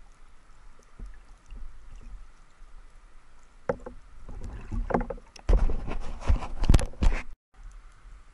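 Underwater knocks, clicks and scrapes as a speared sea bream is handled on the speargun shaft, growing dense and loud about four seconds in and breaking off abruptly near the end, over a faint water hiss.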